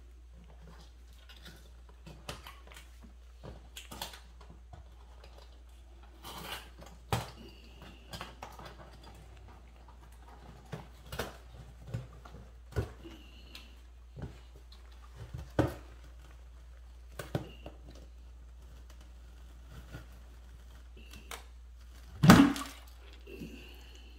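Scattered clicks, knocks and rustles from handling a plastic 5-gallon bucket and its lid with a large collard plant in it, under a faint steady low hum. One loud knock near the end as the lid is worked up off the bucket.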